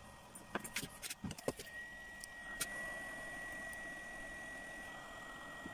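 A few light clicks of handling, then a hot-air rework gun's fan blowing steadily with a thin high whine, as the gun heats a CH341 USB chip on an Arduino Uno board to desolder it.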